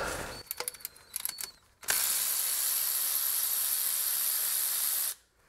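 Cordless electric ratchet running steadily for about three seconds as it spins out the 10 mm crank position sensor bolt, starting and cutting off abruptly, after a few light clicks.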